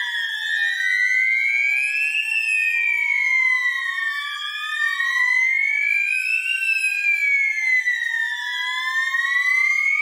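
Electronic fire alarm sounders wailing. Several tones slide slowly up and down, each rise and fall taking about four seconds, and they overlap out of step with one another. The sounders are in general alarm after the linear heat detector was triggered into fire.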